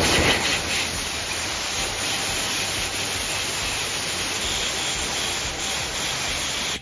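Compressed-air blow gun hissing in one long continuous blast as air is forced through a motorcycle brake caliper to clean it out.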